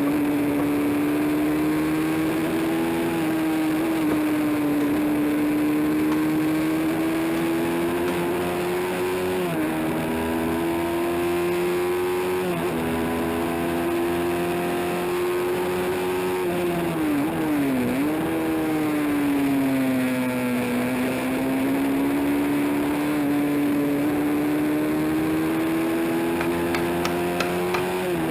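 Honda CB350 race engine running hard at high revs. Its pitch holds high, falls sharply twice, dips around the middle, then climbs slowly back up.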